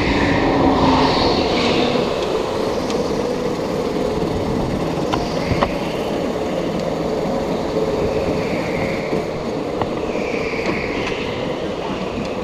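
Go-kart running at speed around an indoor track: a steady motor hum that shifts a little in pitch through the corners, with chassis and tyre noise and a few sharp ticks.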